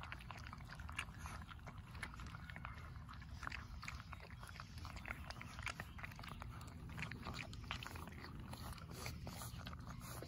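Four 4.5-week-old Labrador retriever puppies eating dry kibble from a stainless steel bowl: a dense, irregular patter of small crunches and clicks from chewing and biting, over a low steady rumble.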